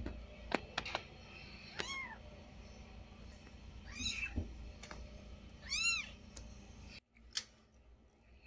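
A cat meowing three times, each a short call that rises and falls in pitch, with a few soft clicks and rustles between them.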